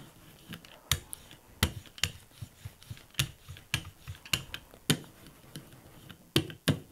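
Hand brayer rolled back and forth through acrylic paint mixed with clear gesso, across a palette sheet and a gel printing plate, making sharp clicks and knocks with each stroke, about one to two a second.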